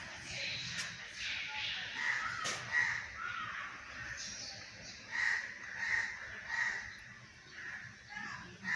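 Crows cawing repeatedly, short separate caws in loose runs, three of them evenly spaced a little over half a second apart past the middle.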